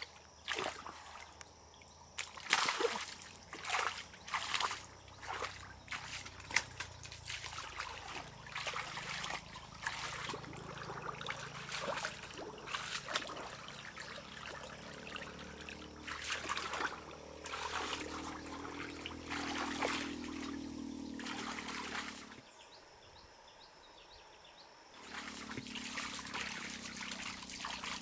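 Water trickling and splashing in irregular bursts, with a brief quieter gap near the end.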